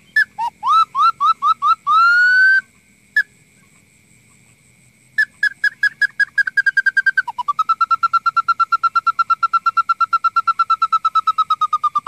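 Hatong, a bamboo bird-call whistle, blown to lure birds toward a mist net. It opens with a quick run of short rising chirps ending in a longer rising note. After a pause of about two seconds comes a fast run of short falling notes that turns into a long, even trill of rapid pulses, about seven a second.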